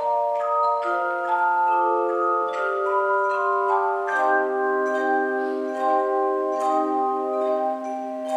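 Handbell choir ringing a piece: English handbells struck in overlapping notes that ring on and blend into chords, with a fuller, lower chord coming in about four seconds in.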